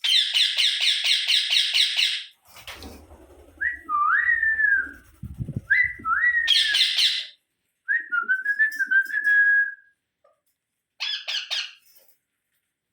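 Pet rose-ringed (ringneck) parakeets calling: a loud run of rapid harsh squawks at the start, then clear whistles rising and falling in pitch, broken twice more by short harsh squawks.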